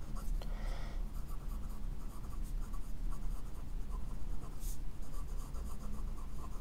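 Omas Paragon fountain pen with a fine 14-karat gold nib writing on a Rhodia paper pad: a light, steady scratching of short pen strokes, with one brief sharper stroke about three-quarters of the way through.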